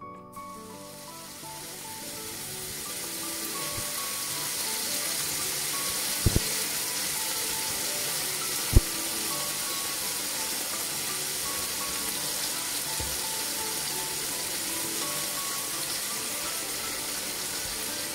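Skinless longanisa sausages sizzling as they fry in a nonstick pan: the hiss sets in right at the start, builds over the first few seconds, then holds steady. Soft background music runs underneath, and a quick pair of knocks about six seconds in is followed by a single louder knock near nine seconds.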